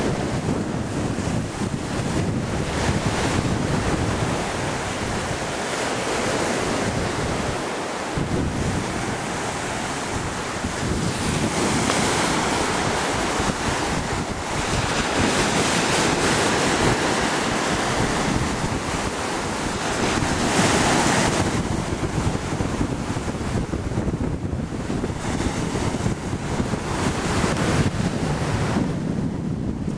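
Ocean surf breaking and washing in below, mixed with wind buffeting the microphone; the wash swells louder a few times as waves come in.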